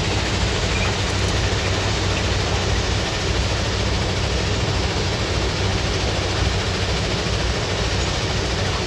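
A working rail ballast-cleaning machine and its train passing at close range: a steady, heavy rumble with a rushing noise as the machine digs out and throws the track ballast.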